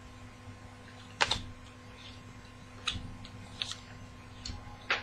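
Trading cards being handled and laid down on a table: a few sharp separate clicks and taps, the loudest about a second in, over a faint steady hum.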